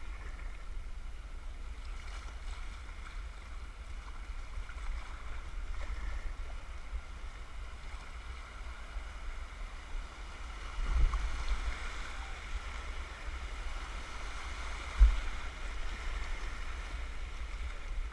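Rushing river water heard during a run down a rapid, with a steady low rumble on the microphone. The water grows louder about 11 seconds in, and a sharp knock comes about 15 seconds in.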